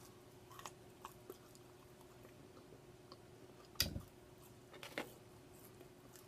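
Quiet close-up chewing with small mouth clicks, and a sharper click just under four seconds in.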